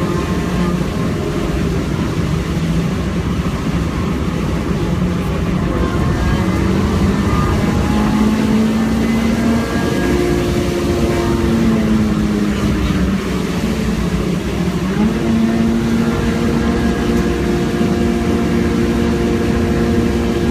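A car's engine pulling hard, heard from inside the cabin. Its note drops just after the start, rises about ten seconds in, sags again and rises once more about fifteen seconds in. Under it runs a steady hiss of tyre and road noise on a rain-soaked track.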